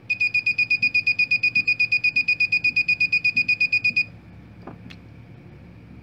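Breadboard buzzer driven by a 555 timer circuit beeping rapidly in a fast, even pulse of a single high tone, about seven beeps a second, then cutting off about two-thirds through as the power is removed.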